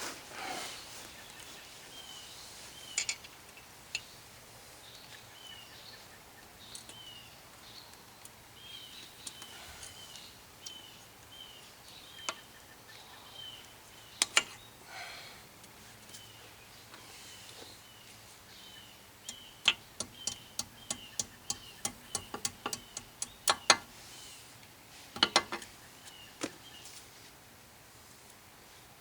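A small bird chirping over and over, a short chirp about twice a second. Over it come scattered sharp metal clicks and taps from hand tools at the front wheel hub, with a quick run of clicks about twenty seconds in, the loudest sounds here.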